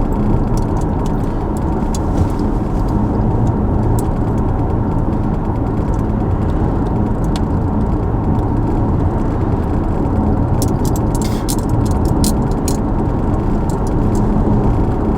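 Steady road and engine noise inside a moving car's cabin, a low rumble with a faint hum, and a few light clicks about eleven to thirteen seconds in.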